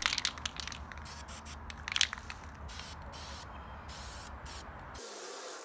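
Aerosol can of Duplicolor engine enamel spraying paint in short hissing bursts, with a few clicks and one sharp rattle about two seconds in.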